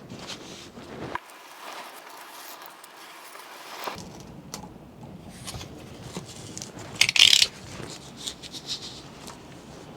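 Handling noises of foam packaging and plastic parts being fitted around a vacuum cleaner motor: scattered rubs, scrapes and light clicks, with a brief louder rustle about seven seconds in.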